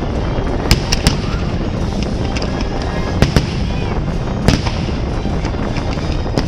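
Aerial fireworks going off: sharp bangs in clusters of two or three over a continuous rumble of launches and bursts. Music plays underneath.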